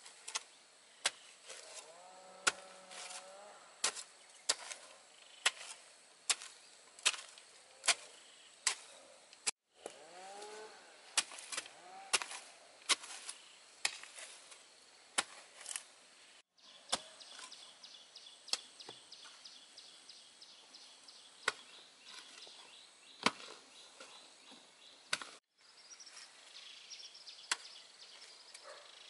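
A hoe striking into soil in a steady rhythm, roughly one sharp chop a second. Birds chirp in the background, and an insect buzzes through the second half.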